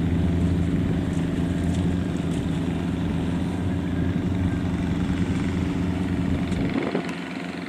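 Kubota DC70 combine harvester's diesel engine running steadily; its deep low hum drops away near the end.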